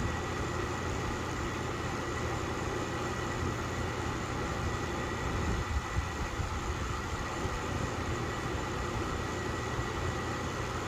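Steady low mechanical hum with a faint, steady high-pitched tone above it and no distinct strokes or events.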